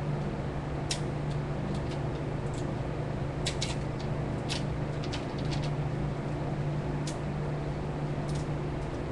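Steady low hum and hiss, with scattered light clicks from fishing rods and line being handled and rigged.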